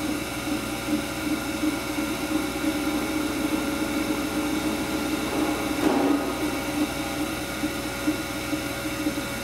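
Unison centerless grinder running steadily, its grinding-wheel spindle and variable-speed centerless unit making a constant machine hum with several steady whines; the spindle sounds good. Briefly rougher about six seconds in.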